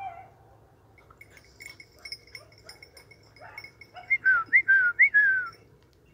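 A person whistling to a hunting dog: four or five short, high notes, each sliding down in pitch, in quick succession about four seconds in.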